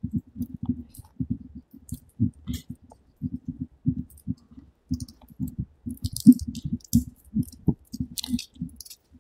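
Soft, irregular low thumps and rubbing from a handheld camera's microphone being carried while walking, with a few faint clicks in the second half.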